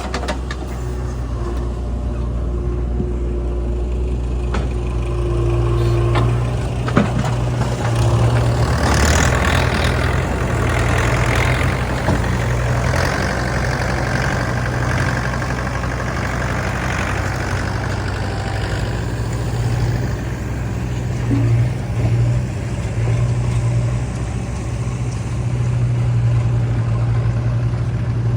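Diesel engine of a JCB 3DX backhoe loader running steadily, picking up about eight seconds in with a rush of added noise for several seconds, then settling back.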